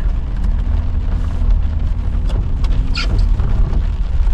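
Car cabin rumble of a vehicle moving off slowly, its engine running with a steady hum, with a few faint clicks and a short high squeak about three seconds in.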